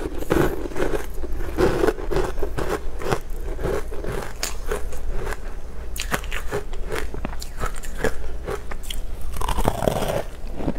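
Close-miked chewing and biting of a crunchy sweet, with quick crackling crunches and a rhythm of chews about twice a second. A fresh, louder bite comes near the end.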